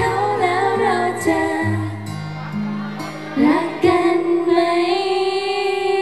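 Female pop vocals sung live into microphones over recorded backing music, with steady bass notes under the singing. A little past halfway the vocal settles into one long held note that lasts through the end.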